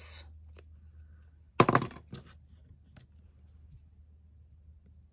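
Craft supplies being handled and put down on a worktable: one sharp, loud clack of a hard object set down about a second and a half in, with a few faint taps.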